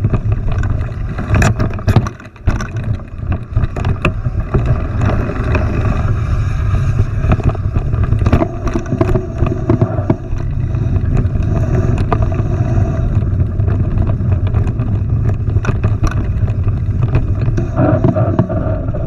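Mountain bike riding noise: a steady low rumble of tyres and wind on the camera's microphone, with frequent clattering knocks from the bike over rough ground.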